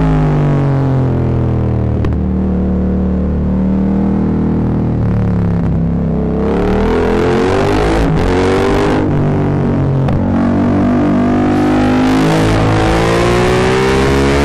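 Yamaha MT-07's parallel-twin engine through a full Akrapovic exhaust, loud and distorted on the microphone. The engine pitch falls as the bike slows, holds steady, then climbs again about six seconds in as it accelerates, with several short dips along the way.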